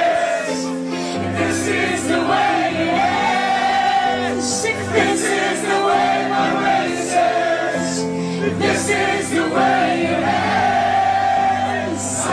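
Music with choir-like singing over held, layered chords.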